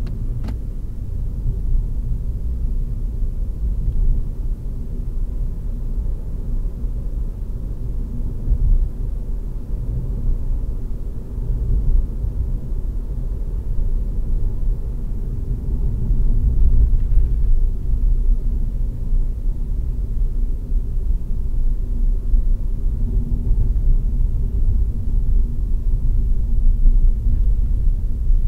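Steady low rumble of a car's engine and tyres on the road, heard from inside the cabin while driving at moderate speed, with one sharp click just after the start.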